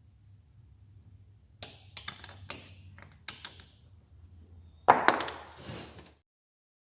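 A metal press plate and hand tools being handled on a workbench: several sharp clanks and taps, then a single louder clank about five seconds in with a short rattling tail. The sound cuts off suddenly just after six seconds.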